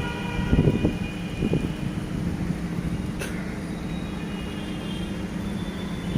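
A horn with several steady tones sounds and fades out about two seconds in, over a steady low rumble of a large vehicle, with a few dull thumps near the start.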